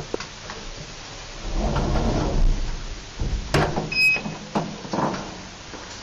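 Elevator landing door being opened at a stop: a click, a rumble as the door moves, then a sharp clack and a few knocks from the door and its latch, with a short beep about four seconds in.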